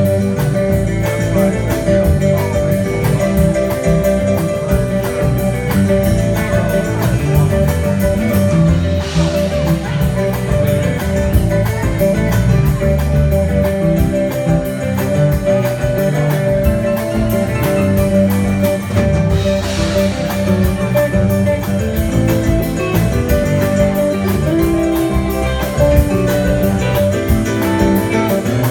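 Live rock band playing through an outdoor stage PA: electric guitar, bass and drums, with a steady cymbal beat over held notes.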